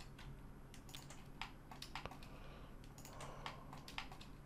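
Computer keyboard keys and mouse buttons clicking in an irregular scatter of faint, sharp taps, including a held Ctrl key with mouse clicks used to pick a shortest-path edge selection.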